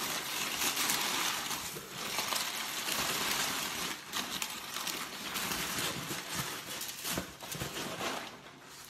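Rustling and crinkling of packaging, handled in a shipping box while the next item is searched for: a continuous crackly noise with many small sharp crinkles, dying down near the end.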